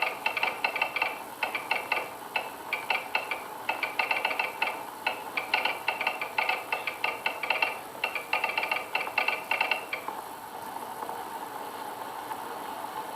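Morse code being sent on a telegraph key: quick clicking taps in short and longer groups, for about ten seconds, then it stops.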